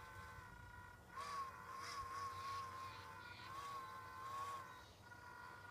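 Faint high electric whine from a powered-up underwater rig of a BlueRobotics T200 thruster and a servo. From about a second in until near the end, a stronger buzzing tone wavers up and down as the submerged servo works.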